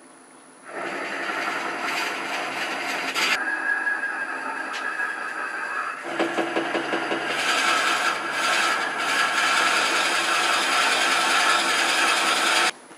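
A large 1 5/8-inch drill bit in a tailstock Jacobs chuck boring into the end grain of a wooden pepper-mill blank spinning slowly on a lathe. The bit makes a rough, continuous grinding cut as it is fed in, starting just under a second in and stopping abruptly near the end.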